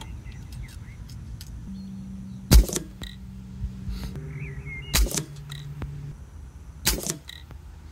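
Air Arms XTi-50 pre-charged air rifle firing a single shot about two and a half seconds in, a sharp crack that is the loudest sound here. Two quieter sharp clicks follow, about five and seven seconds in.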